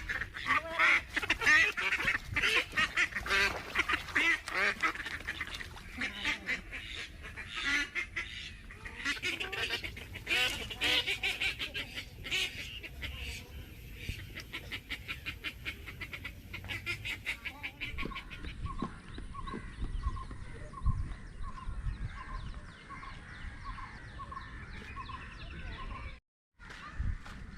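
A flock of waterfowl calling, many overlapping calls at first, thinning later to a regular run of calls about one and a half a second.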